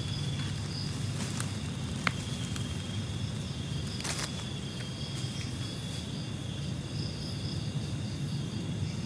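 Night outdoor ambience: insects chirring in steady thin high tones over a low steady hum, with a few faint clicks and a short rustle about four seconds in.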